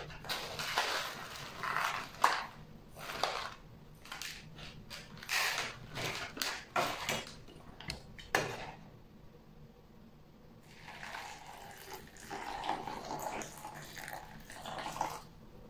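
Small plastic pellets poured from a plastic bag into a plastic bowl, rattling and clicking as they fall, along with bag rustling. After a short pause, hot water is poured from a steel pot into the bowl over the pellets.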